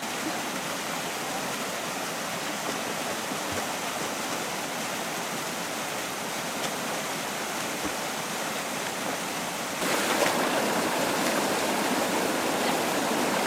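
Mountain stream rushing steadily over rocks, getting louder about ten seconds in.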